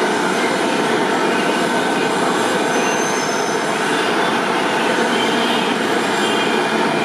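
Manila LRT Line 1 light-rail train running along the elevated viaduct toward the listener, its rolling rumble blended into steady dense city traffic noise, with a faint thin wheel squeal about three seconds in.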